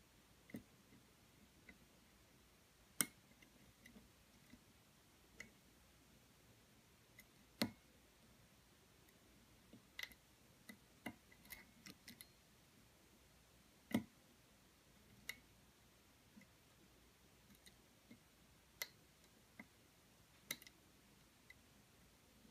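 Small sharp clicks of a lock pick and tension wrench working the serrated security pins of an American Lock 700 series padlock: single clicks at irregular intervals, one every second or two, a few much louder than the rest, with near silence between.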